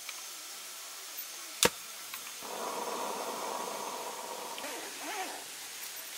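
Top&Top Golden Eye 380 gas lantern being lit: one sharp igniter click, then about three seconds of steady hissing as the gas burns and the mantle glows bright.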